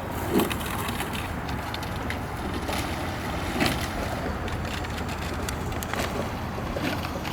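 Wind buffeting the microphone, a steady low rumble with a few faint clicks or taps scattered through it.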